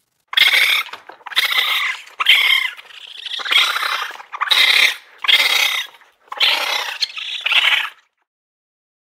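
Raccoon dog calling: about seven short, harsh calls in quick succession, each under a second long, stopping about a second before the end.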